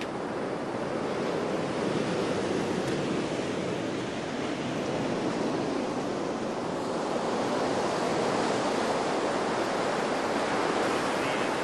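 Surf breaking on a beach: a steady rushing wash of waves that grows a little fuller about two-thirds of the way through.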